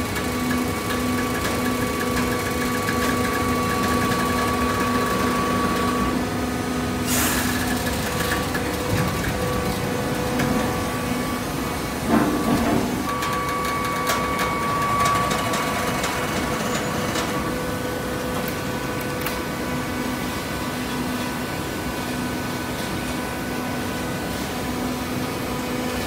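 Horizontal hydraulic baler running: a steady mechanical hum from its motor and hydraulic pump, with a few steady tones. A short hiss comes about seven seconds in and a loud clunk about twelve seconds in.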